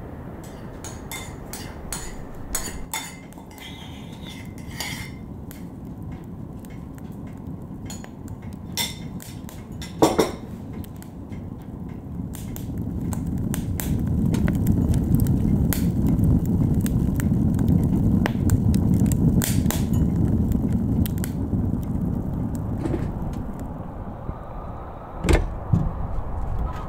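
Split firewood crackling and popping as it burns in a wood stove, with a steady rush of the fire that grows louder about halfway through. There is a short squeak around a third of the way in, and a loud thump near the end.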